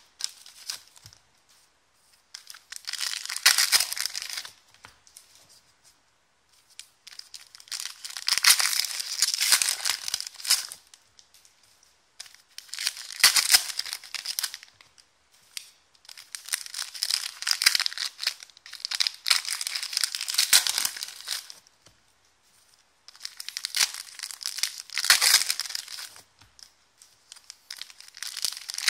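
Foil wrappers of 2016-17 Excalibur basketball card packs being torn open and crumpled by hand. The crinkling comes in about six bursts of a few seconds each, with short quiet gaps between them.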